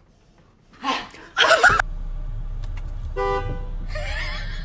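A car horn toots once, briefly, about three seconds in, heard from inside the car over a steady low rumble. A loud short burst of noise comes about a second in.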